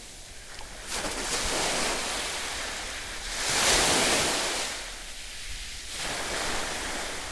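Small sea waves washing in at the shoreline, a steady rush of surf that swells twice.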